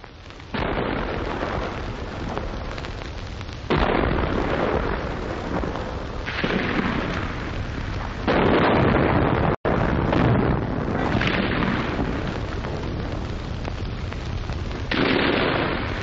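Archival 1944 field recording of British and German gunfire in street fighting: a run of sudden bangs and explosions, each dying away over a few seconds. There is a brief cut-out about two-thirds of the way through.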